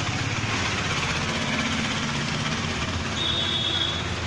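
Street traffic: vehicle engines running with steady road noise, and a faint high-pitched tone, like a distant horn, about three seconds in.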